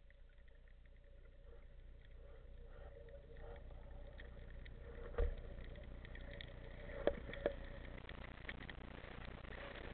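Muffled underwater sound picked up by a camera in a waterproof housing while a diver swims with a speargun: a steady low rumble and a faint steady hum, with sharp knocks about five seconds in and twice around seven seconds in.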